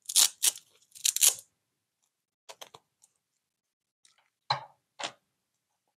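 Handling noise from a small plastic drone frame and its LiPo battery and strap being fitted together: several short bursts of rustling and scraping, the loudest in the first second and a half and two more near the end.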